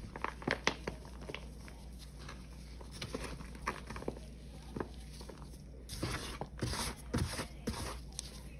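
Dried paste of Ajax powder, Pine-Sol and Palmolive crumbling in gloved hands: scattered dry crackles and crunches as chunks break apart, with a denser run of grainy rubbing about six to eight seconds in.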